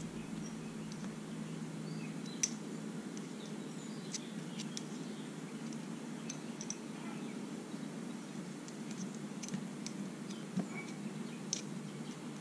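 Faint, scattered clicks and taps of a small hand tool working a rubber dust boot down into a motorcycle brake master cylinder, the sharpest about two and a half seconds in, over a steady low hum.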